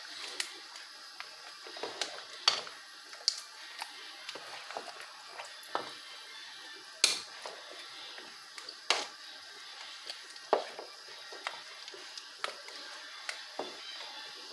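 A spoon stirring a large pot of thick ogbono soup, with squishy stirring and irregular knocks of the spoon against the pot, the sharpest about seven seconds in.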